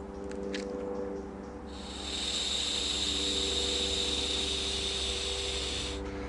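Beekeeper's smoker hissing steadily for about four seconds as it puffs out smoke, starting about two seconds in and cutting off abruptly near the end. A low steady hum runs underneath.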